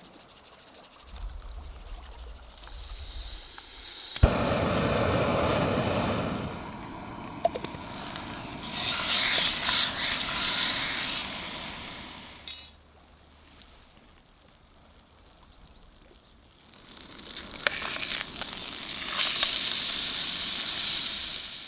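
Steak sizzling as it sears in a frying pan over a small gas camp stove. It starts with a sharp clack about four seconds in, breaks off for a few seconds past the middle, then sizzles again near the end.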